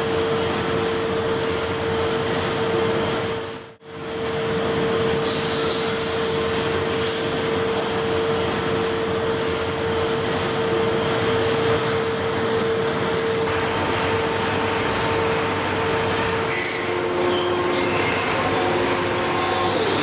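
ESAB Translas 3020 laser welding system running: a steady machine hum and rush of noise with one constant tone, which dips out briefly about four seconds in. Near the end a couple of extra tones and light clicks join in.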